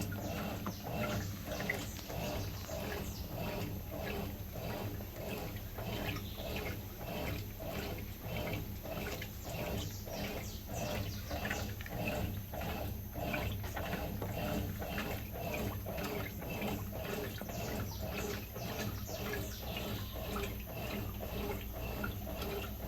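Brastemp 11 kg top-loading washing machine running through its wash, water sloshing rhythmically a few times a second over a steady motor hum as the load is churned.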